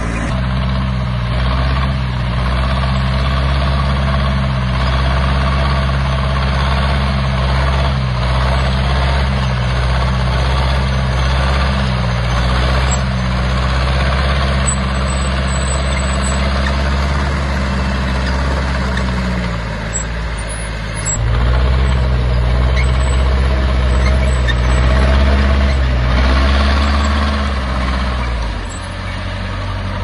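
Heavy diesel engine of a bulldozer working, a steady low drone. About twenty seconds in it dips briefly, then comes back louder. It dips and rises again near the end.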